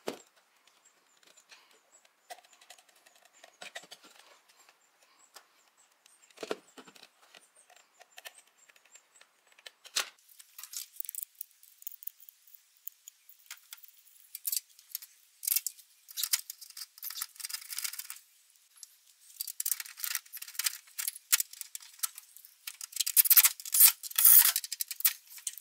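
Small clicks and light rattles of wires and metal parts being handled. Then, for most of the rest, denser, louder clattering of a metal bracket being handled, ending with a cordless drill fastening it to the tractor's sheet-metal hood.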